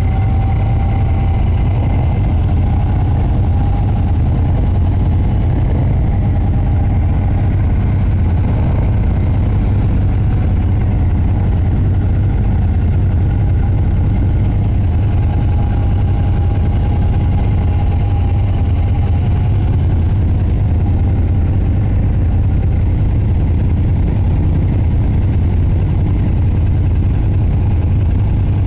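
Engine of a tracked off-road utility vehicle running steadily, a loud, even low drone that holds without change.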